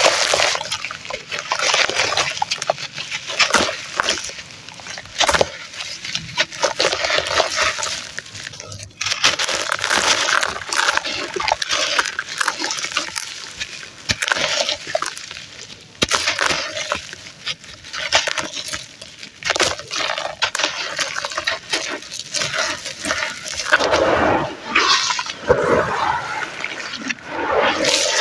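Crunchy red sand crumbling into foamy water: wet crackling and crunching with sharp clicks, in irregular bursts.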